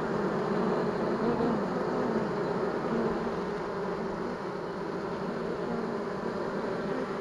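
A dense crowd of honey bees from a freshly hived swarm buzzing at the hive entrance, close to the microphone: a steady hum with several pitches that waver up and down.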